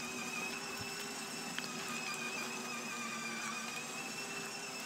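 Battery ride-on toy Mercedes driving along, its electric drive motors and gearbox giving a steady, fairly faint whine.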